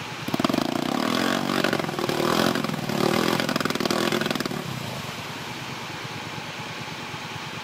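Kawasaki Brute Force 750 ATV's V-twin engine revving hard for about four seconds as its wheels spin and churn in deep mud, then settling back to a steady lower run.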